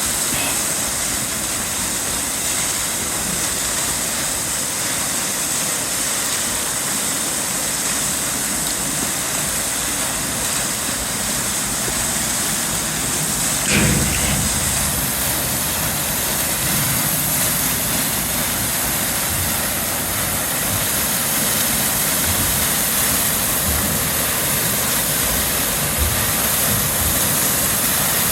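Steady rushing roar of Svartifoss waterfall, with a brief low thump about halfway through.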